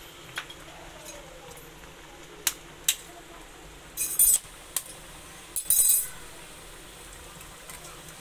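Eggs being cracked on the rim of a metal kadhai of boiling Maggi noodles: two sharp taps, then a short crackle of shell breaking open, another tap and a second crackle.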